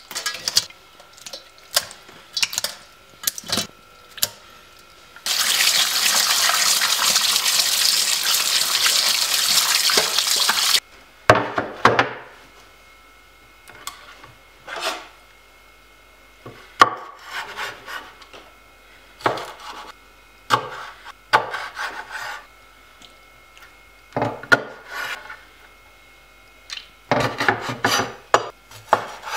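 A kitchen tap runs hard into a stainless steel sink for about five seconds while raw snake fish are rinsed. Before and after it come scattered knocks and slaps of wet fish against a wooden cutting board and the sink. Near the end a large knife chops through the fish on the board in a quick run of knocks.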